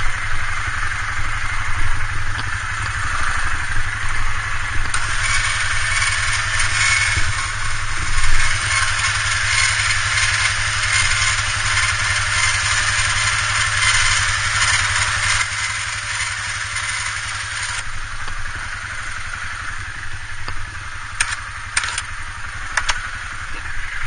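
Yamaha Grizzly 450 ATV's single-cylinder four-stroke engine idling steadily, over the rushing of creek water that grows louder for a stretch in the middle. A few sharp clicks come near the end.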